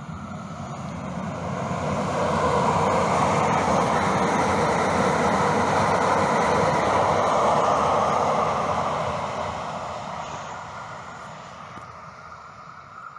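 A vehicle passing by: a steady noise swells over the first few seconds, holds loud for about five seconds, then fades away.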